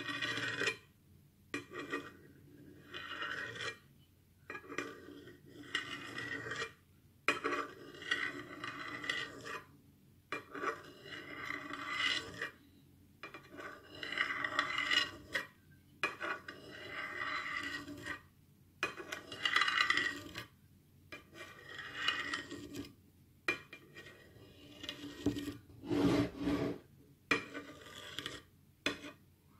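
A knife blade scraping along a plate as it slices through set green gulaman gelatin, in repeated strokes about one a second, with a heavier knock near the end.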